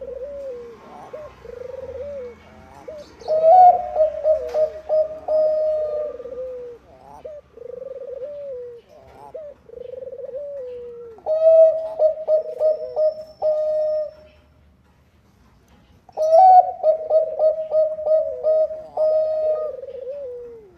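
Zebra dove (Bangkok perkutut) cooing: a string of soft, short, falling coos, broken by three louder song phrases made of fast stuttering notes, with a short silent pause before the last one.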